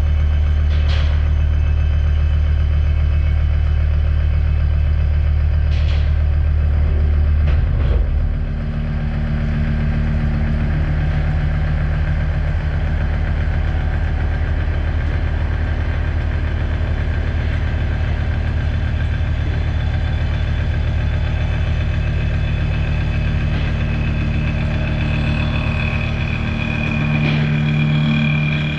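Mazak horizontal machining center running while milling AR400 abrasion-resistant steel: a steady machine hum with a few steady tones. The deep hum drops and a higher tone takes over about eight seconds in, and a high whine grows near the end.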